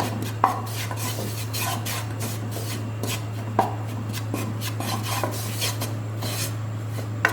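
A spoon scraping and clinking against a pan over and over as flour is stirred and roasted in butter, with a few sharper knocks of the spoon on the pan. A steady low hum runs underneath.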